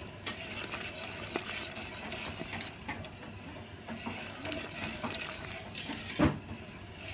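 Wire whisk stirring mushroom cream sauce in a pan, with quick scraping and clicking against the pan as cornstarch is whisked in to thicken the sauce. A louder knock about six seconds in.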